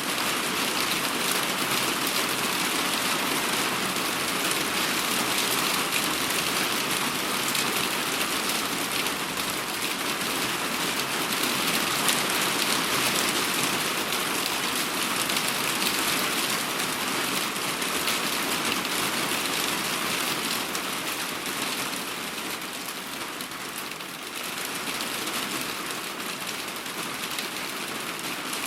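Heavy rain falling steadily, a dense even hiss of many drops with no pauses. It eases slightly for a few seconds near the end, then picks up again.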